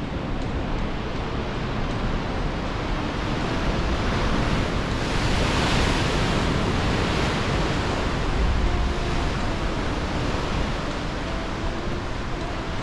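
Ocean surf surging and breaking through a rock sea arch, a continuous wash that swells louder about halfway through, with wind buffeting the microphone.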